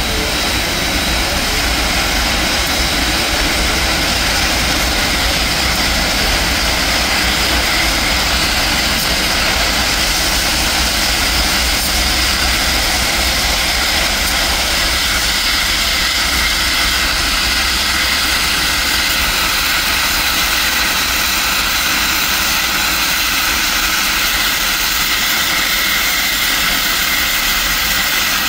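Union Pacific 4014 Big Boy steam locomotive releasing steam from its cylinder cocks, a loud, steady hiss with no exhaust beats.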